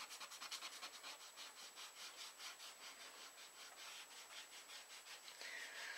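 Rubber eraser scrubbing pencil lines off cardstock in quick, even back-and-forth strokes; faint.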